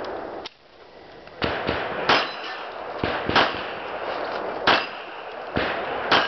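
Pistol shots at steel targets, several of them followed by the ringing clang of a hit steel plate. After a short lull near the start, about seven shots come at uneven intervals.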